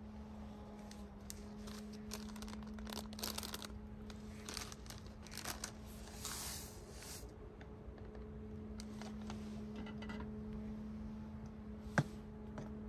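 Crinkling and tearing of bread and its packaging, mostly in the first half, over a steady low hum. A single sharp click near the end.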